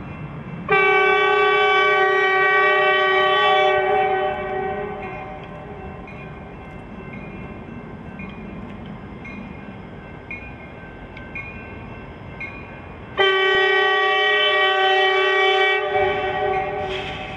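CSX SD70MAC diesel locomotive's air horn sounding two long blasts for a grade crossing, about ten seconds apart, over the rumble of the train. A crossing bell dings about once a second between the blasts.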